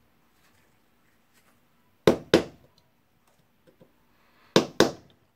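Four sharp metal hammer blows in two quick pairs, struck on a punch held against the pins of a Bosch GDR18-Li impact driver's hammer mechanism housing to knock the pins out.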